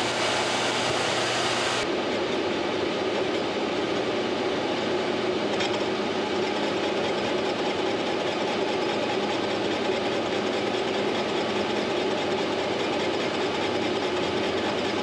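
Large Monarch engine lathe running steadily as its boring bar takes a facing cut across the end of a steam traction engine clutch arm's hub, a continuous machine hum and cutting noise.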